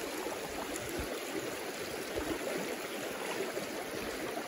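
A shallow, low salmon river flowing fast over a rocky bed close to the microphone: a steady, even sound of running water.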